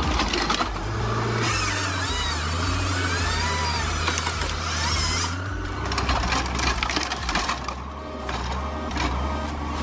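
Engine of a 1976 Kockums 880 forestry machine running steadily, with high wavering squeaks in the first half, under background music.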